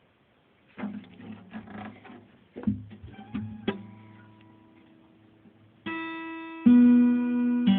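Hohner acoustic guitar being tried out after repair: a few picked notes and string noises, then a ringing note about six seconds in and a loud chord near the end that rings on.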